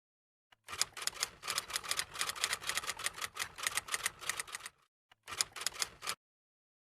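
Rapid typewriter key clatter in two runs: about four seconds of fast clicking, a short break, then under a second more.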